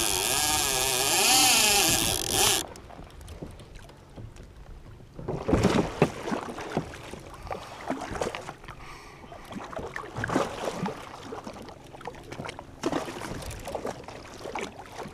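A loud hissing rush with a wavering tone for the first couple of seconds, cutting off suddenly. After that, water slaps and splashes against a kayak hull, with scattered light knocks.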